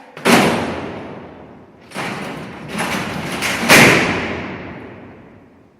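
Alcatraz's sliding steel cell doors being worked: a heavy clang about a quarter second in, a rolling rattle from about two seconds, and a louder slam near four seconds. Each clang rings out slowly.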